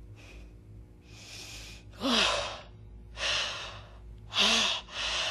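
A woman's heavy, uneven gasping breaths, about one a second, louder from about two seconds in. Two of them catch in the throat with a brief falling cry.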